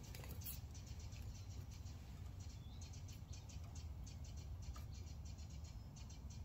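Faint, light clicking and scraping of a small battery-terminal screw, flat washer and lock washer being handled in the fingers, over a low steady background rumble.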